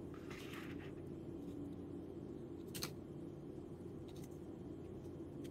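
Faint rustling of a paper leaflet and a thin cardboard box being handled, with one light click about halfway through, over a low steady room hum.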